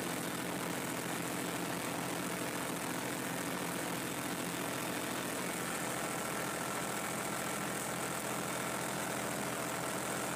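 Tractor engine running steadily under load, heard from inside the cab, while it pulls a rotary mower cutting foxtail millet; an even drone with a hiss and no change in pace.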